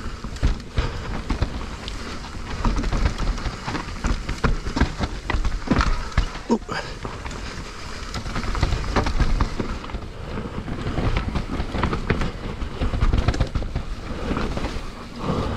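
Mountain bike rolling fast down a dirt trail: a constant low rumble from the tyres on the ground, with frequent rattles and knocks as the bike hits bumps.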